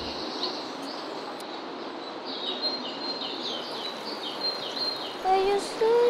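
Birds singing in the open: a run of short, quick chirps, each sweeping downward, over a steady background hiss. Near the end a voice comes in with a few short held notes.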